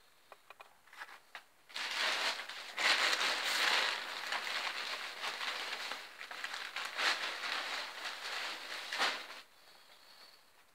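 Crinkling, crackling rustle of packaging being handled off to the side, in uneven surges for about seven seconds and stopping abruptly, after a few light clicks.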